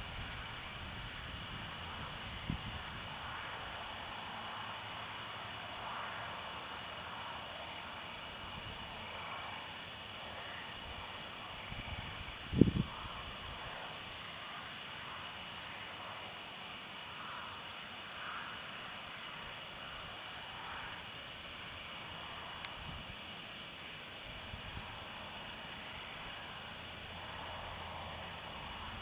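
A steady chorus of night insects, crickets among them, trilling in several high-pitched layers. A single short low thump stands out about twelve seconds in, with a fainter one early on.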